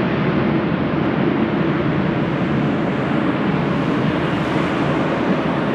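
Jet airliner engines at takeoff power: a loud, steady roar that holds even throughout.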